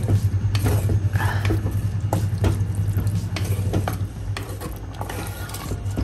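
A flat spatula scrapes and stirs a wet mix of anchovies and grated coconut in a clay pot, in repeated irregular strokes against the pot. A steady low hum runs underneath.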